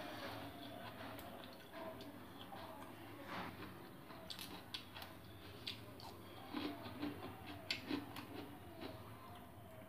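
Quiet eating by hand from a steel plate: scattered small clicks and taps, more frequent in the second half.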